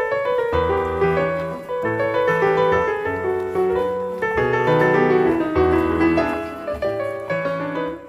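Background music played on piano, with a moving bass line under chords and melody notes that change about every half second.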